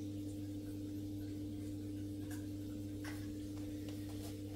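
Steady low electrical hum from aquarium equipment running in the cabinet, with a few faint, scattered ticks.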